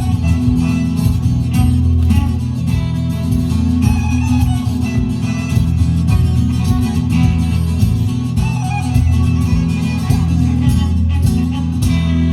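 Music with plucked guitar over sustained low notes; the higher parts drop away near the end.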